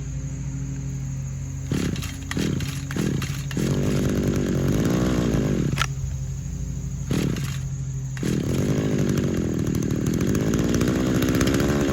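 Small two-stroke engine of an old RedMax string edger idling, then given throttle in several surges about two seconds in, its pitch rising and sagging unevenly. It won't take gas and bogs as if flooding; the owner suspects a cracked carburetor diaphragm.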